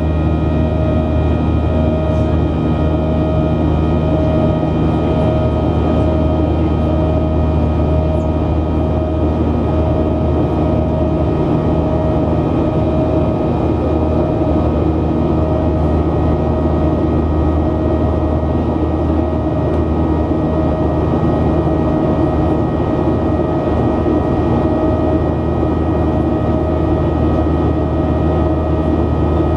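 Cabin noise of a Boeing 737-800 climbing out after takeoff, heard from a window seat beside its CFM56-7B turbofan: a steady drone with a low hum, several steady tones and one mid-pitched tone that pulses evenly, under a steady rush of air.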